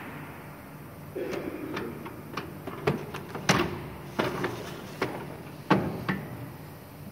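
Metal clunks and knocks from a die-cutting machine's metal bed plate being slid along its rails and handled: about half a dozen sharp knocks spaced irregularly, the loudest about three and a half seconds in.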